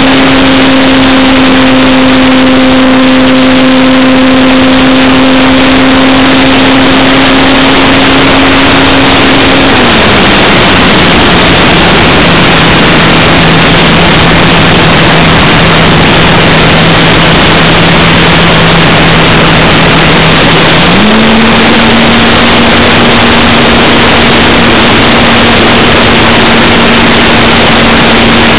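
Electric motor and propeller of a Parkzone T-28 Trojan RC plane in flight, heard from its onboard camera: a steady hum under a heavy rush of air. The pitch drops as the throttle is pulled back about ten seconds in, then rises again about eleven seconds later.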